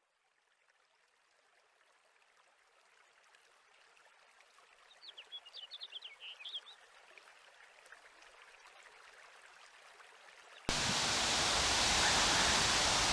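Wind rustling through treetop foliage, fading in slowly and growing louder, with a bird's quick run of chirps about five seconds in. Near the end it jumps suddenly to a much louder rush with a low rumble, like a gust hitting the microphone.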